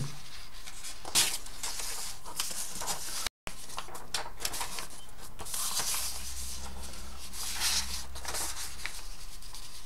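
Sheets of notepad paper rustling as pages are handled and flipped over, in a few separate swells of rustling.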